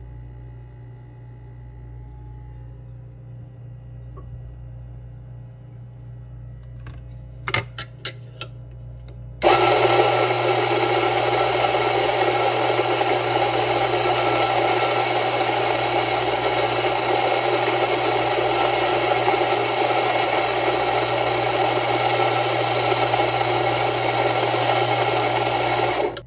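A few light knocks, then about nine seconds in a Rancilio Rocky burr grinder starts and grinds coffee beans with a loud, steady grinding noise, stopping at the very end. It is grinding an 18 g espresso dose into a portafilter.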